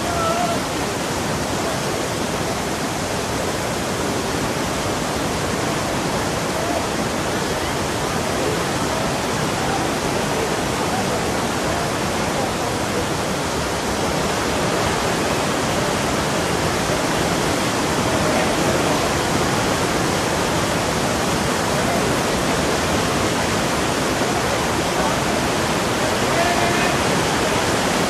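Umbrella Waterfall at Sajikot pouring down, a steady loud rush of falling water.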